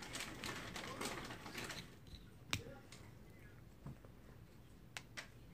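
Faint rustling for about two seconds, then a few short sharp clicks: one about halfway through and two close together near the end.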